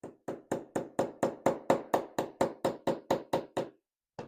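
Rapid, even tapping of metal on a cam lock's pin-chamber cap, about four sharp knocks a second, that stops, then one more knock near the end: working at a stubborn cap that is not starting to move.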